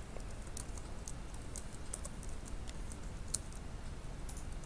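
Faint computer keyboard clicks, a scattering of light irregular key taps, over a low steady hum.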